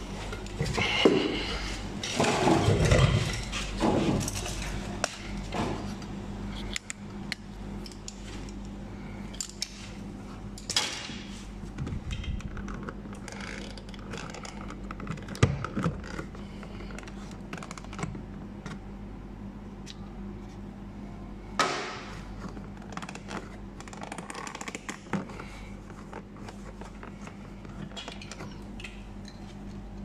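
Scattered clicks, taps and scrapes of a small screwdriver and hands working on the plastic door trim around the power window switch, with a cluster of louder handling knocks in the first few seconds and a few sharp clicks later. A steady low hum runs underneath.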